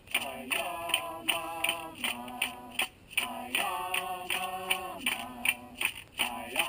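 A voice singing a wordless Native American chant in long held notes, over a steady beat of sharp percussive clicks, about two to three a second, like a hand rattle or clapper stick.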